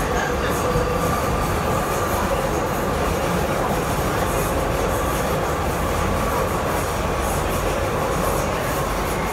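Metro train running through a tunnel, heard from inside the carriage: a steady rumble and rush of wheels on rail, with a faint steady whine.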